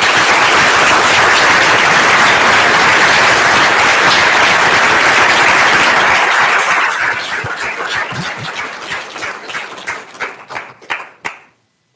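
Audience applauding: dense, steady clapping that thins out after about seven seconds into scattered separate claps and dies away near the end.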